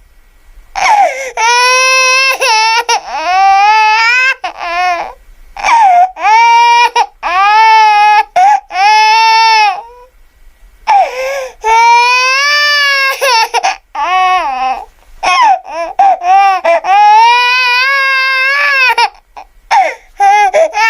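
A high-pitched voice crying: a string of long, wavering wails, each lasting one to three seconds, with short catches of breath between them and a brief pause about halfway through.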